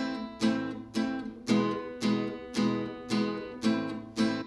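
Background music: a guitar strummed in an even rhythm, about two chords a second, each ringing out before the next.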